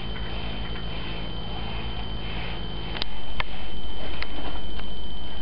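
Steady hum and room noise with a constant high whine. About three seconds in the level jumps up and three sharp clicks follow over the next second or so, handling noise close to the microphone.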